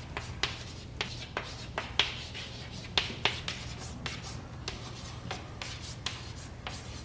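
Chalk writing on a blackboard: a run of sharp taps and short scrapes at an irregular pace, over a low steady room hum.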